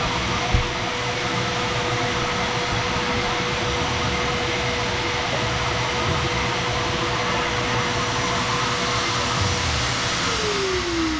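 Shop vacuum running steadily with a whining motor, sucking debris out of a trench dug in a concrete slab. Near the end it is switched off and the whine falls as the motor spins down.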